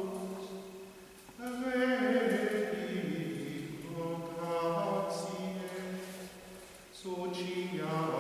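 A single male voice chanting Latin liturgical text in Gregorian plainchant, in long phrases on a few held pitches. There is a breath pause about a second in and another near the end.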